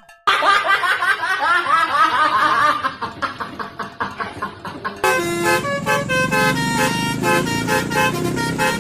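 Multi-tone telolet bus air horns playing. Just after a brief break at the start comes about three seconds of quick warbling, gliding notes, then a quieter stretch, then from about five seconds in a tune of short stepped notes.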